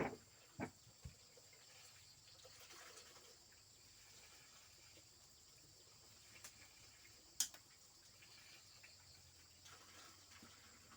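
Faint steady insect chirring, with a few sharp clicks or snaps: three in the first second and two more past the middle.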